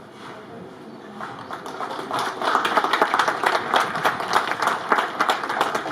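A crowd applauding. It starts about a second and a half in and builds quickly into steady clapping.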